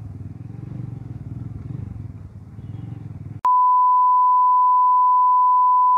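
Motorcycle engine running at riding speed with a low, steady hum. About three and a half seconds in, a loud, steady single-pitch beep tone cuts in and replaces all other sound.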